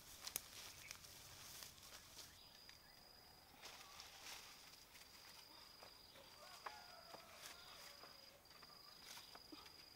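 Faint forest ambience: a high, thin insect trill in long stretches with brief breaks, and a few faint bird chirps about two-thirds of the way in.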